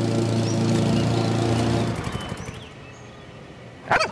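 Walk-behind gas lawn mower engine running steadily, then shutting off about two seconds in and dying away. Faint high chirps follow, and a short, loud, sudden sound comes just before the end.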